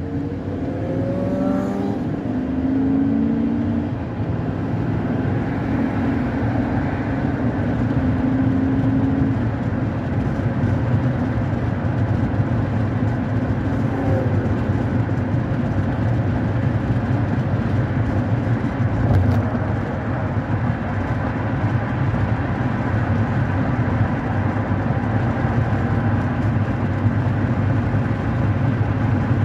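Car driving, heard from inside the cabin: steady engine and road noise, with the engine note climbing through the first several seconds as the car accelerates.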